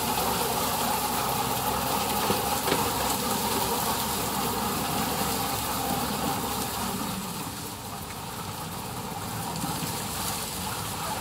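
Diesel engine of a New Holland tractor running steadily under load as it drives a tractor-mounted hydraulic sugarcane harvester through standing cane, cutting the stalks. The sound eases off a little in the second half as the machine moves deeper into the crop.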